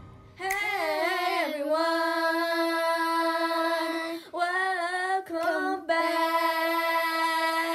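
Young girls singing wordless drawn-out notes: a wavering glide into a long held high note, a short break and a brief phrase about halfway, then another long held note.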